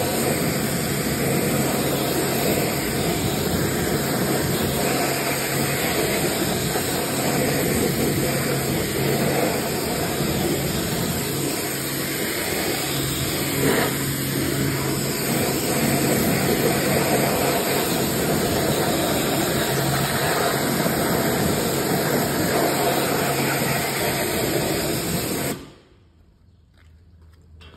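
Pressure washer running, its jet spraying water onto a car's alloy wheel: a steady hiss over the hum of the pump motor, cutting off suddenly near the end.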